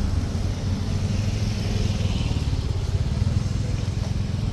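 A vehicle engine running steadily close by: a low, even, pulsing sound.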